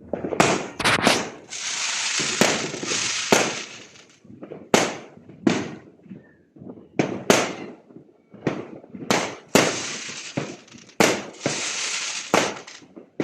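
Fireworks going off: a string of sharp bangs, about one every half second to second, with two long stretches of dense continuous crackling, one near the start and one near the middle.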